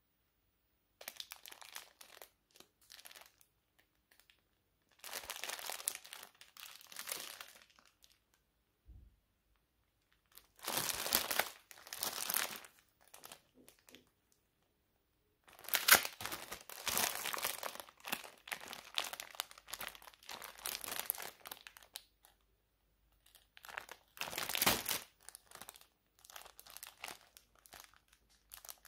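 Crinkling and rustling of something being handled, in irregular bursts of a second or several seconds with short silences between.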